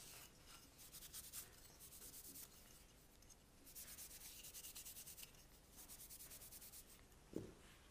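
Faint rubbing of a cloth rag back and forth over a small wooden piece, wiping on Scandinavian oil, in runs of quick strokes. A short light knock near the end.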